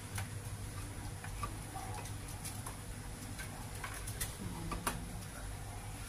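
Faint, irregular small clicks and taps as a young woodpecker is hand-fed mealworms, over a steady low hum.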